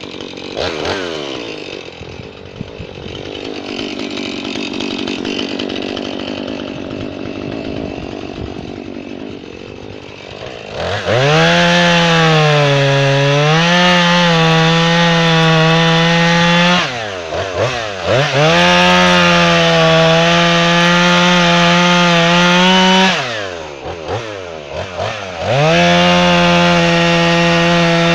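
Jonsered 2240 chainsaw running at low speed for about ten seconds, then opened up to full throttle three times in a row while bucking red oak tops, the engine dropping off briefly between the cuts.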